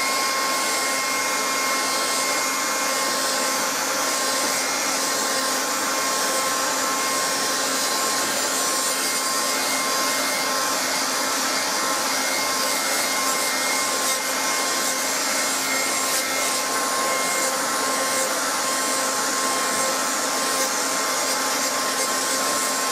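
Handheld hair dryer running steadily, a rush of air with a steady whine on top, heating wax rubbed into a jacket so that it melts into the fabric.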